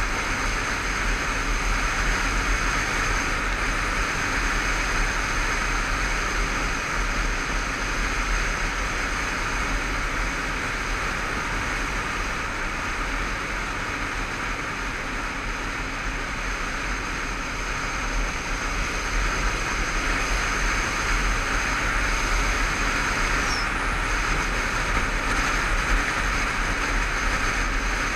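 Honda CBF500 parallel-twin motorcycle being ridden at a steady road speed: a constant rush of wind over the camera microphone, with the engine running underneath, getting a little louder in the last third.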